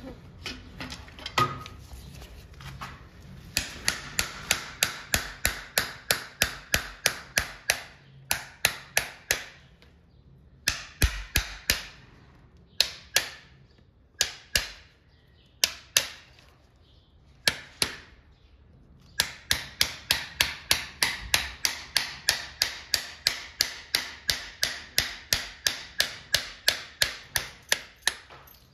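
Farrier's driving hammer tapping horseshoe nails through a steel shoe into the hoof wall, with sharp ringing strikes. They come in quick runs of about three a second, broken in the middle by pauses and a few spaced taps.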